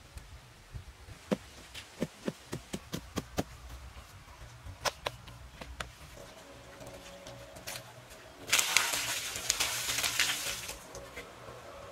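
A run of light clicks and taps in the first half, then, about eight and a half seconds in, water poured from a clay pot splashing onto the bare concrete floor of a pond for about two seconds.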